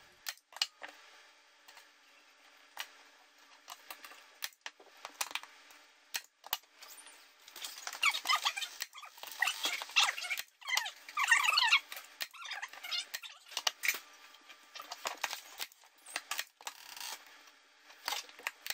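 Hand staple gun firing staples through speaker grill cloth into an MDF ring: sharp clacks every second or so, with rustling as the cloth is pulled tight and handled in the middle.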